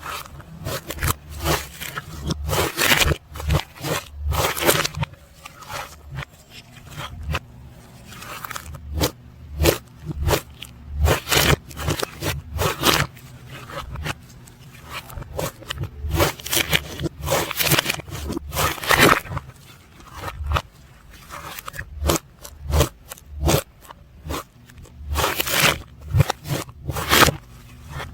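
Hands playing with slime, with the audio played in reverse: irregular sticky crackles and squelches, many short pops in quick succession.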